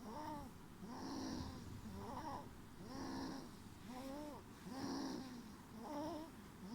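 Sleeping baby snoring: quick, rhythmic breaths, each with a short pitched note that rises and falls, about one a second, between softer hissing breath sounds.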